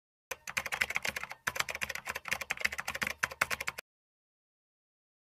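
Rapid clicking of keys being typed on a computer keyboard, several keystrokes a second, with a brief pause about a second and a half in; it cuts off suddenly after about three and a half seconds.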